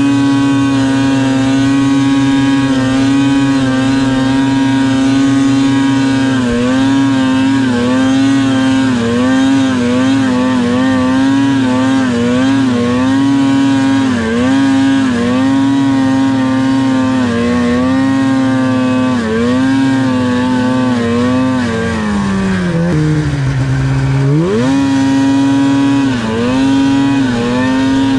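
Polaris Pro RMK 800 snowmobile's two-stroke twin engine held at high revs through a wheelie, its pitch dipping and recovering every second or so as the throttle is worked to keep the front up. About 22 seconds in the revs fall off sharply, then climb back up about two seconds later.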